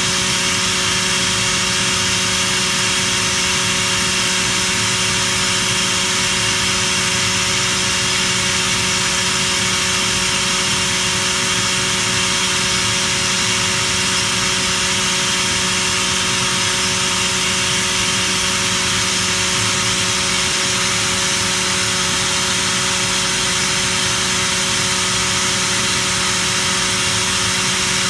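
Atlas Copco ZT37 two-stage oil-free rotary screw air compressor running loaded, with its elements hot and the intercooler under pressure. A steady low hum of a few even tones sits under a strong, airy high-pitched hiss, unchanging and with no cycling.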